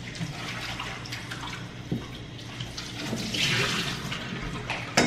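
Water running from a kitchen tap into a stainless steel bowl, splashing as meat is rinsed in it. The splashing swells about three seconds in, and a sharp knock comes near the end.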